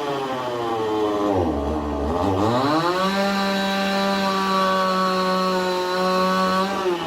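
Chainsaw engine revving. Its pitch falls from high revs to a low idle over the first second and a half, climbs back to full revs about three seconds in, holds steady, and drops off again at the end.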